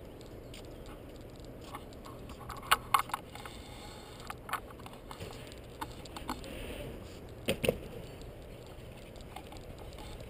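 Irregular sharp clicks and knocks, with a loud close pair about three seconds in and another about two thirds of the way through, over a steady low rumble.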